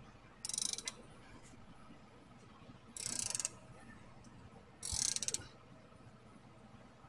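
Hand ratchet wrench clicking in three short bursts, each about half a second of rapid ratcheting, as a nut is run down at a car's front wheel hub.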